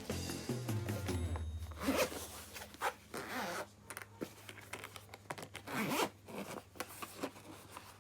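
Zipper on the DJI Osmo Mobile 3's carrying bag being pulled open in a few short strokes, over quiet background music.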